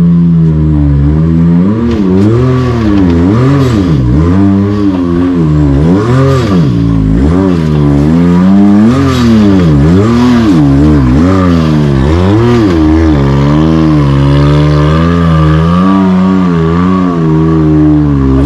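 Can-Am Maverick X3 side-by-side engine revving up and down again and again as it is driven up a steep, bouldery hill, settling to a steady pitch near the start and end, with a few knocks and clatters mixed in.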